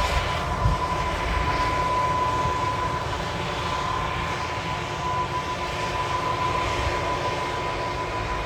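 Large four-wheel-drive tractor running steadily while pulling an air drill, with a constant high whine over the engine noise and wind buffeting the microphone.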